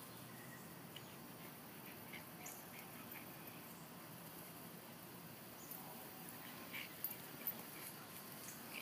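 Faint outdoor background with a few soft, short noises from a Boston terrier puppy scuffling with a cat, and two brief sharp sounds about half a second apart about seven seconds in.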